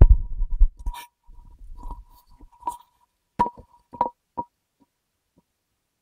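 Rumbling handling noise and clatter as a camera is moved about inside a dishwasher, then three sharp knocks about three and a half to four and a half seconds in as the dishwasher door is shut, followed by silence.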